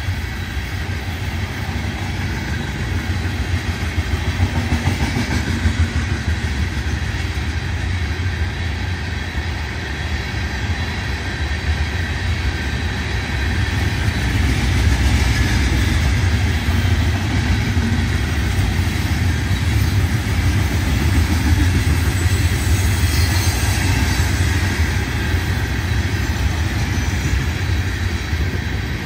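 Florida East Coast Railway freight train rolling past close by: a steady, loud rumble of steel wheels on the rails.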